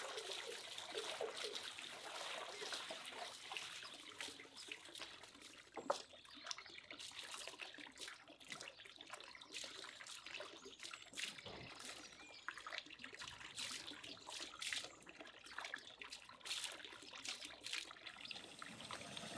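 Water splashing and trickling as cornelian cherries are tipped into a steel basin of water and rinsed by hand, with small irregular splashes throughout. One sharp knock comes about six seconds in.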